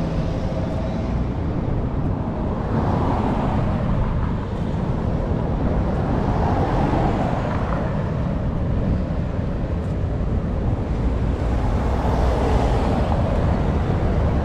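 Road traffic: cars and a pickup passing on a street one after another, the noise swelling as each goes by, over a steady low rumble.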